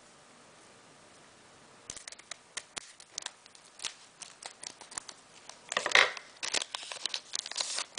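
Pokémon card booster pack being handled and opened: light clicks and rustles from about two seconds in, then the foil wrapper crinkling and tearing loudest about six seconds in and again near the end.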